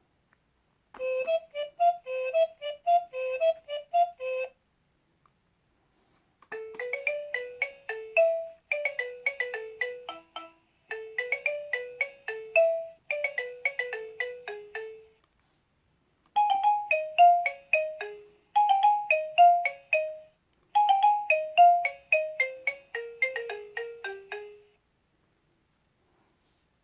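Electronic toy laptop playing a simple beeping melody through its small speaker: first a quick back-and-forth figure of notes, then several phrases of short notes stepping downward, with brief pauses between the phrases.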